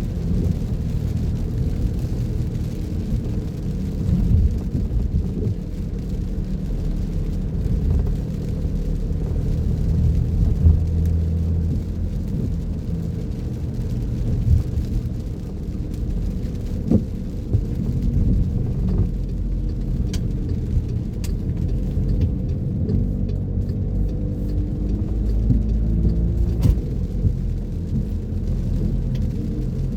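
Car driving in rain: a steady, muffled low drone of engine and tyres on the wet road, with a few sharp ticks.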